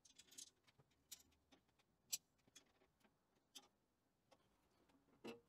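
Near silence with a few faint, scattered light clicks, the loudest about two seconds in.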